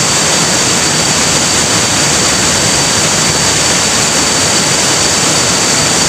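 Waterfall's rushing water, a steady loud rush.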